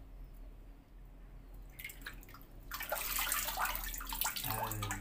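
Water splashing and sloshing in a hydro-dipping tank as a part is dipped through the floating carbon-fibre film and lifted out, water running off it. It starts about two seconds in and grows fuller a second later.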